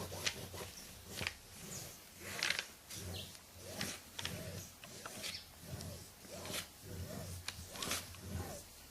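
Drawing on paper: a run of short scratchy strokes, roughly one or two a second, as a child sketches a bird.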